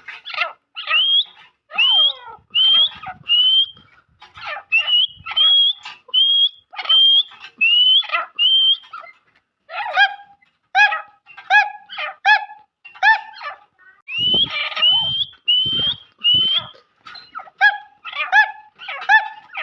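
Captive grey francolins (dakhni teetar) calling: a long run of loud, sharp, repeated notes, many rising at the end, about one or two a second, breaking into a faster series of shorter notes in the second half.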